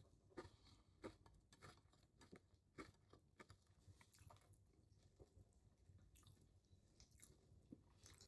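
Faint, irregular mouth clicks and smacks of a person chewing a bite of a deli sandwich, denser in the first few seconds and then sparser.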